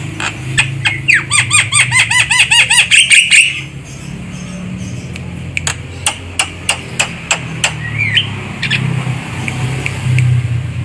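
Javan myna calling: a quick series of sharp clicks, with a fast run of repeated arching whistled notes about a second in, then scattered clicks and a short gliding note near the end. A steady low hum runs underneath.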